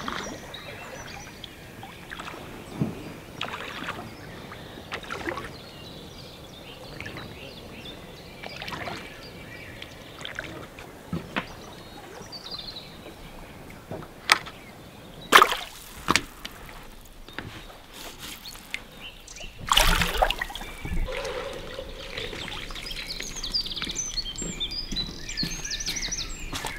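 A small inflatable boat being rowed and handled: scattered oar strokes and water splashes, then several sharp knocks and clatters about halfway through as the boat comes alongside a wooden pier. Birds sing near the end.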